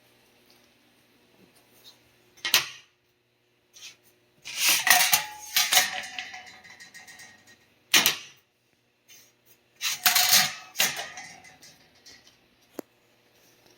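Hard objects clanking and clattering in four bursts: a sharp knock about two and a half seconds in, a longer rattling clatter with some ringing around five seconds, another sharp knock at about eight seconds and a further clatter around ten seconds, then a small tick near the end.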